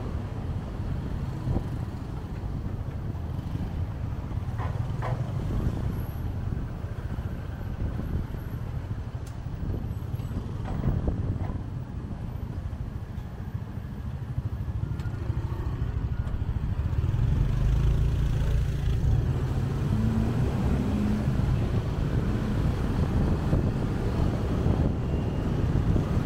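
Riding a motorcycle through city traffic: a steady low rumble of wind on the microphone mixed with engine and traffic noise, getting louder about two-thirds of the way in.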